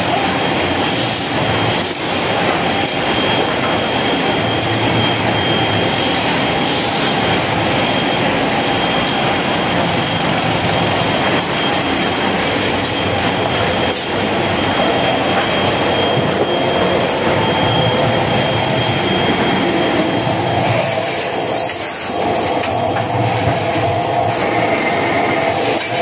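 Toilet tissue and kitchen towel production line running: a steady, dense mechanical clatter and rattle of conveyors and converting machinery, with a thin high whine through the first half or so.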